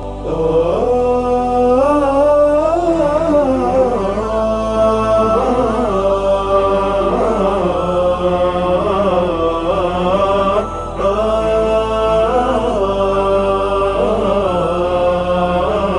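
Theme nasheed: a drawn-out sung melody with long, gliding, ornamented notes over a low sustained drone that shifts note every few seconds, between the sung verses.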